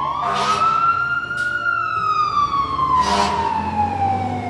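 Cartoon fire-truck siren sound effect: one slow wail that rises over the first second and a half, then falls gradually. Short hissing noise bursts come near the start and about three seconds in, with a brief tick about a second and a half in.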